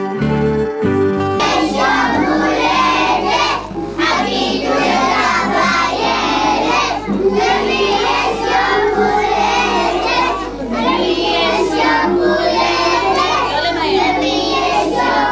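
A group of children singing a song together over music, loud and continuous. A brief horn-like instrumental tune cuts off suddenly about a second and a half in, where the singing takes over.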